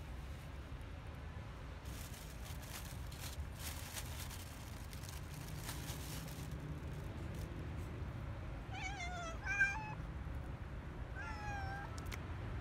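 A stray cat meowing three short times, two close together in the second half and one near the end, the pitch wavering within each call.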